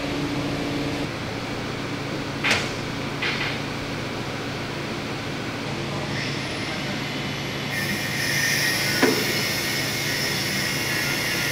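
Forklift engine running with a steady hum while it lowers a tank's turret basket, with two sharp metal knocks a few seconds in and another clank later. A hiss joins about two-thirds of the way through.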